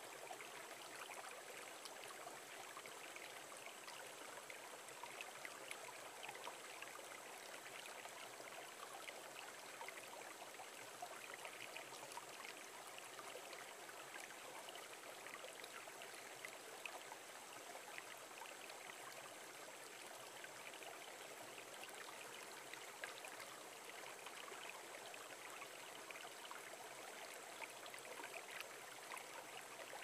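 Shallow stream running over pebbles and stones: a steady, quiet babble of water with a fine trickling grain.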